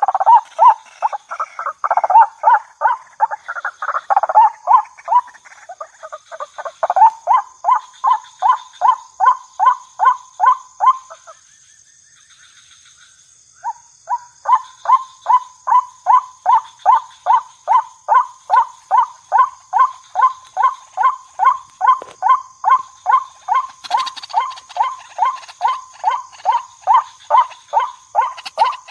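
White-breasted waterhen calling: a long run of loud, evenly repeated croaking notes, about three a second, that pauses for about two seconds midway and then resumes. A faint steady high-pitched tone runs underneath.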